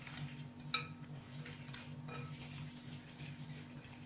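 A metal fork clinking lightly against a ceramic bowl while stirring melted butter and sugar. There are a handful of faint clinks, the clearest about a second in, over a steady low hum.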